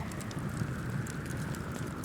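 Wood campfire crackling with frequent small, irregular pops over a steady low rumble.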